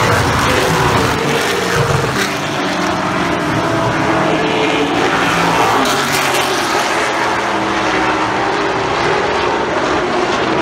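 A field of oval-track race cars running at speed, several engines sounding at once with their pitches shifting up and down as cars pass close by the grandstand and carry on around the track.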